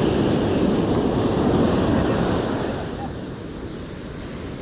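Surf washing on a beach, with wind buffeting the microphone; the roar is louder at first and eases off about two and a half seconds in.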